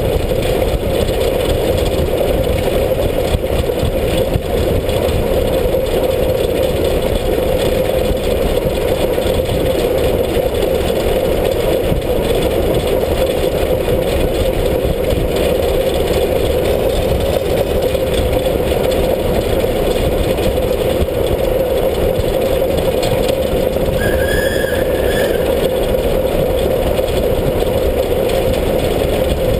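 Class 33 2-10-0 steam locomotive running along the line, heard from beside its body: a loud, steady rush of running gear, wheels on rail and wind. A brief high squeal sounds about three-quarters of the way through.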